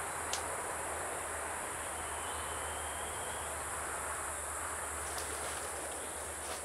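Steady high-pitched drone of an insect chorus in tropical forest, with a faint thin whistle for a second or so in the middle and a few light clicks.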